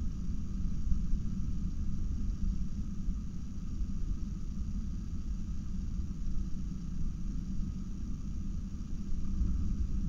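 Strong wind buffeting the nest-box camera's microphone: a low, gusting rumble, with a stronger gust about a second in.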